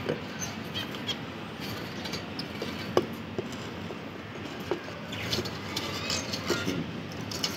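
A clay pot nest knocking and scraping against a wire bird cage as it is worked into place by hand, with scattered small clicks and one sharp click about three seconds in.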